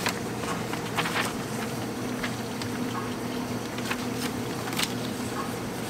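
Steady electrical machine hum with a low, even tone, and a few short rustles of paper sheets being handled, the clearest about a second in.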